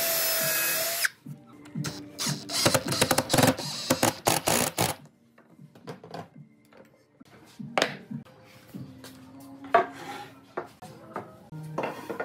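Cordless drill running into a pine block, first with a steady whine for about a second, then a few seconds of rapid, irregular stuttering bursts. After that come a few scattered light knocks.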